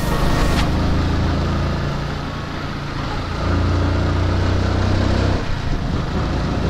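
Yamaha R15's single-cylinder engine running as the bike is ridden. It eases a little about two seconds in and pulls louder through the middle, with wind rushing on the microphone near the end.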